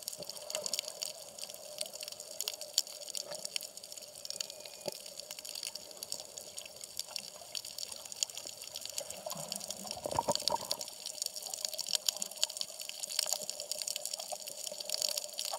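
Underwater sound of a shallow coral reef heard from a camera just below the surface: a continuous crackle of fine clicks over water noise, swelling briefly about ten seconds in.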